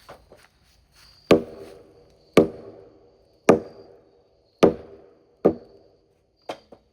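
Hammer blows knocking a beam into place: four heavy strikes about a second apart, each followed by a brief ringing, then a few lighter taps near the end.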